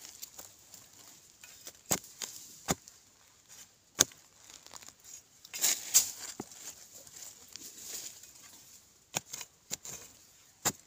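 Metal digging blade chopping and scraping into soil around yam roots: irregular sharp knocks and clicks, with soil crumbling and rustling between them.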